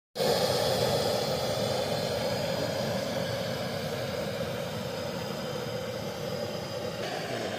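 Gas burner on a portable LPG cylinder, its flame roaring steadily under a cooking pot.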